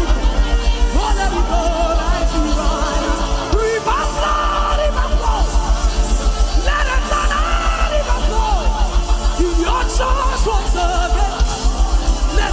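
Worship music with a fast, even pulsing bass beat, over which a voice cries out and sings in long, wavering, gliding tones with no clear words.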